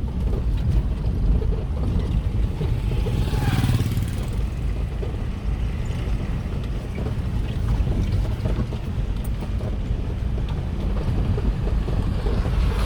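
Steady low rumble of a moving vehicle with wind buffeting the microphone, and a louder rushing swell about three to four seconds in and again near the end.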